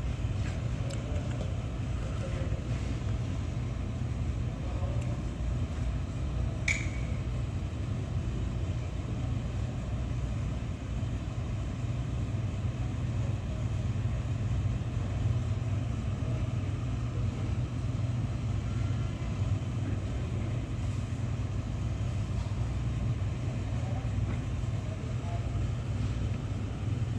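A steady low rumble runs underneath, with one sharp click about seven seconds in.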